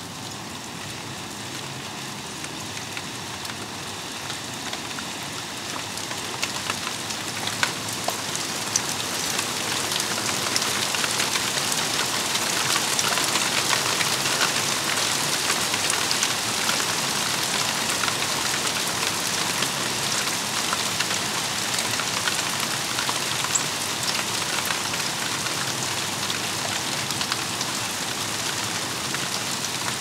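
Rain falling steadily on garden leaves and the ground, with many close drops striking; it grows heavier over the first ten seconds or so, then holds steady.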